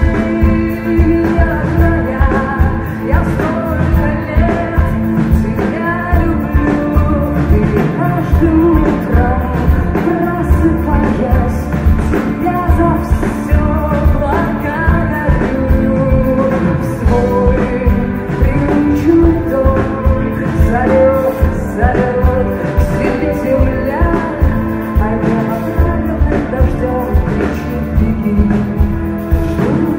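Live rock band playing, with guitar and a steady drum beat, and a woman singing lead vocals.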